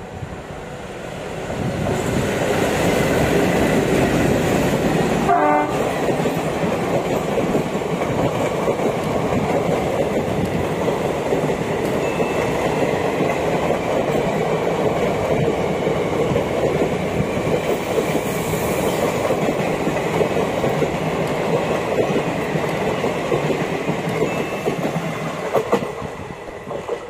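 An express passenger train passing through a station at speed without stopping. The locomotive gives one short horn blast about five seconds in. A long, steady rumble and clatter of the coaches' wheels on the track follows, then fades near the end as the train moves away.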